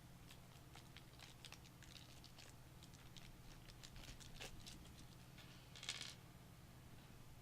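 Faint scattered clicks and light scrapes of small screws and metal parts being handled inside a small PC case, with a short rustle about six seconds in, over a low steady hum.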